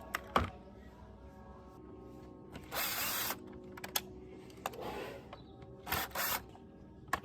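Workshop handling noises, sharp clicks and three short hissing or whirring bursts of work on the keyboard, over quiet background music with sustained tones.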